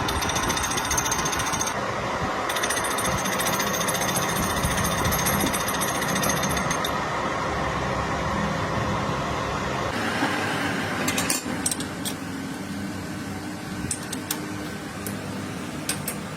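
Metalworking lathe running with a dense, rapid rattling chatter. About ten seconds in the low rumble drops away, leaving a lighter running sound with scattered sharp clicks.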